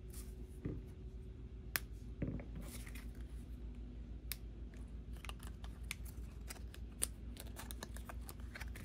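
Paper-card ear-tip packaging being handled: scattered light clicks and short rustles as the card's flap is folded and a silicone ear tip is taken out of its holder.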